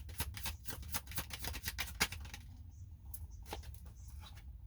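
Tarot cards being shuffled and handled: a rapid run of crisp card clicks for about two and a half seconds, then a few single clicks as the cards settle.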